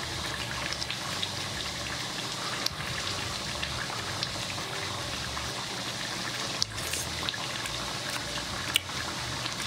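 A pot of Jamaican curry chicken simmering on the stove: a steady bubbling hiss, with a few faint clicks.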